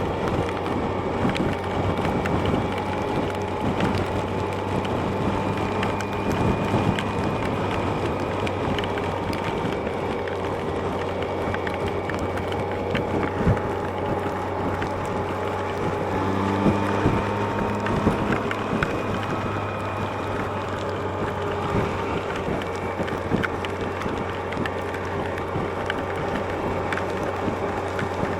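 Yamaha FJR1300A's inline-four engine running steadily on the move, under heavy wind and rain noise on the microphone. Frequent small ticks come through, and the engine pitch drifts only slightly.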